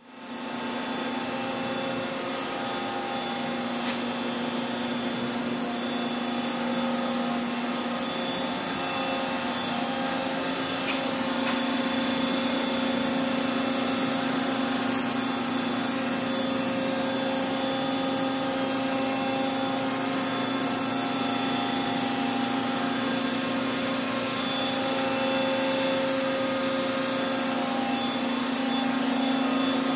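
Steady machinery hum: a strong low drone with many fainter steady tones above it over an even hiss, fading in at the start and holding unchanged.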